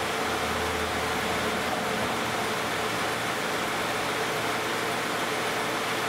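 2010 Toyota Camry's 2GR-FE 3.5-litre V6 idling steadily while warming up after a cold start, at 161,500 miles.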